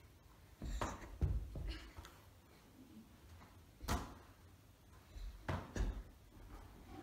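A football thumping into goalkeeper gloves and onto the floor in a small room: about six dull knocks and thumps, the sharpest about four seconds in.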